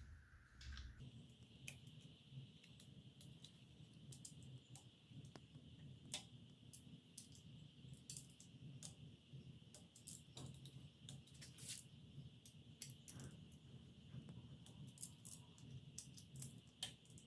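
Near silence: a faint steady high-pitched hum with scattered light clicks.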